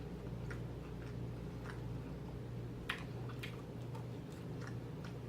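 Close-up chewing with faint, irregular wet mouth clicks and smacks, one sharper click about three seconds in, over a steady low hum.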